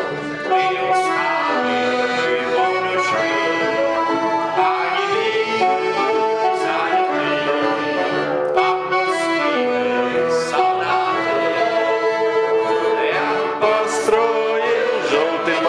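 Small band playing, with accordion to the fore over double bass and saxophone.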